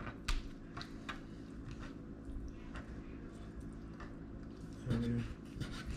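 A kitchen knife clicking a few times against a cutting board, then the quieter wet handling of raw chicken pieces being trimmed, over a faint low hum. A brief murmur of voice comes near the end.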